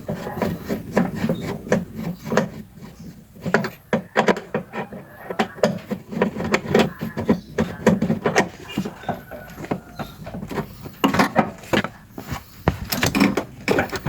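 Phillips screwdriver and car seatbelt parts being worked loose: a dense run of irregular clicks, knocks and scraping of metal and plastic.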